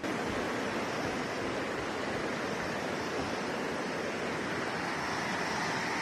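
Waterfall rushing: a steady, even wash of white-water noise with no breaks.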